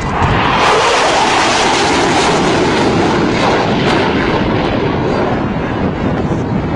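Fighter jet passing low and fast: a loud rushing jet-engine noise that comes in sharply about half a second in, holds strong, then eases slowly, losing its higher hiss toward the end.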